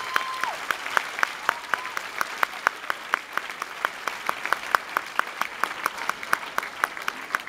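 Audience applauding, with one person's claps close by standing out at about four to five a second over the general clapping.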